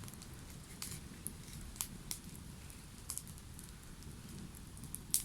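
Campfire crackling, with irregular sharp pops every second or so; the loudest pop comes near the end.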